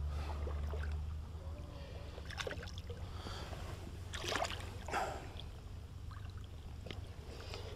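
Soft water splashes and sloshing as a landing net is worked through shallow water around a tired hooked mullet, with a few short splashes standing out about halfway through. A low steady rumble runs underneath.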